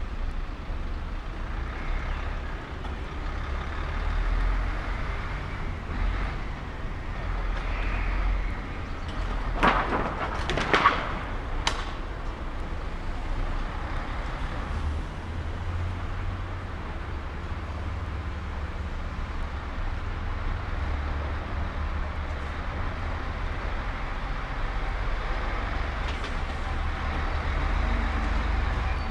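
Street traffic: a steady low rumble of passing vehicles, with a truck driving past near the end. About ten seconds in, a brief cluster of sharp knocks stands out.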